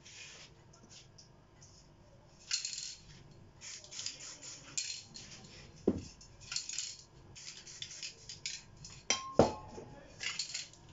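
Clattering and rustling: metal spray-paint cans being handled, with two sharp clinks about six and nine seconds in, the second ringing briefly, amid short bursts of rustling noise.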